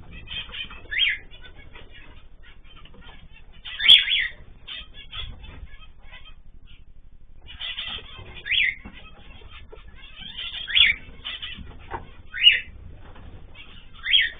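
Mixed cage birds (cockatiels, zebra finches and canaries) chirping constantly, with a louder, sharp falling call every couple of seconds.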